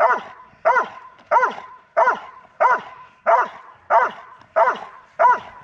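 Doberman barking in protection training: sharp guard barks in a steady rhythm, about one and a half barks a second.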